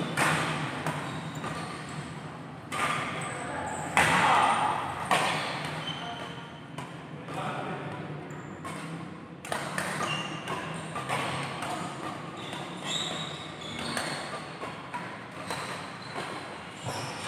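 Badminton doubles play in a large indoor hall: sharp racket hits on the shuttlecock and footfalls on the wooden court, repeated through the rally, with players' voices in the background.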